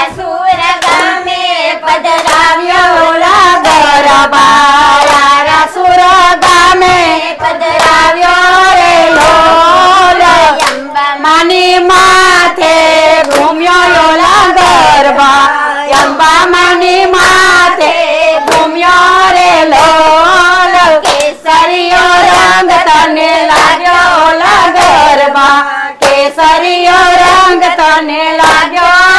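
Group of women singing a traditional Gujarati garba together, clapping their hands in a steady rhythm as they dance.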